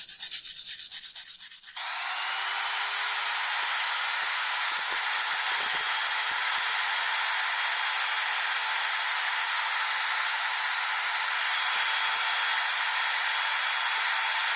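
Quick, even rubbing strokes, like hand scrubbing or sanding, for about the first two seconds. Then a small electric machine starts suddenly, its tone rising briefly as it spins up, and runs steadily with a loud hiss.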